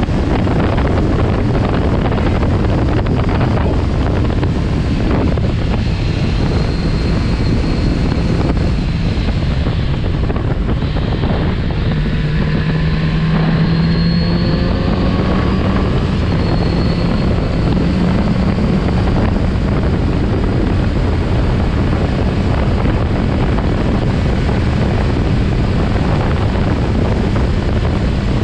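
Kawasaki Z900RS Cafe's inline-four engine running on the move, under heavy wind noise on the microphone. Around the middle the engine note stands out more clearly, with a few short rises and falls in pitch.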